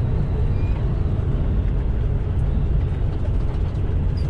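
Semi truck driving at highway speed, heard inside the cab: a steady low engine drone with road and tyre noise.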